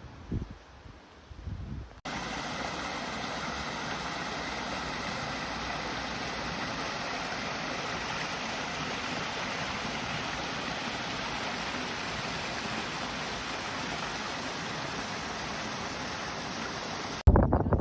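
A steady, even rushing noise, like running water, that starts abruptly about two seconds in and cuts off abruptly near the end.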